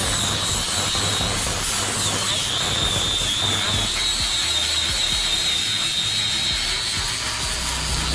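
A power tool running steadily, with a high wavering whine from about two seconds in.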